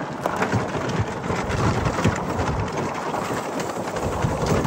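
An electric golf cart driving over gravel: steady crunching of its tyres on the loose stones.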